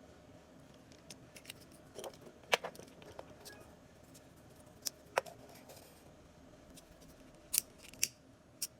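Scattered small sharp clicks and taps from hand tools and phone parts during a phone repair. The loudest comes about two and a half seconds in, with a few more near the middle and a quick cluster near the end.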